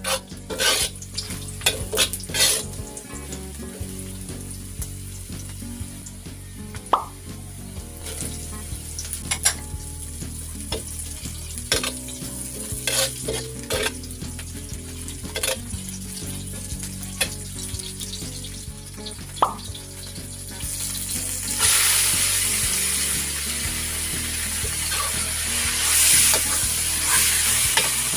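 Metal ladle scraping and clinking against an aluminium wok as garlic and onion sauté in oil with a light sizzle. About two-thirds of the way through the sizzle grows much louder and stays up, as raw beef cubes go into the hot oil and are stirred.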